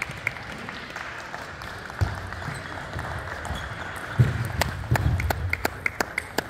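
Table tennis rally: sharp clicks of the celluloid ball off bats and table, coming thick and fast in the second half, with players' feet thumping on the court floor.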